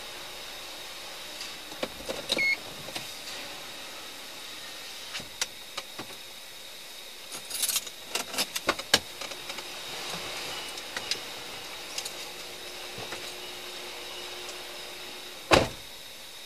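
Scattered clicks and knocks of handling inside a parked police patrol car, with a short electronic beep about two seconds in over a faint steady high whine. A single heavy thump sounds near the end.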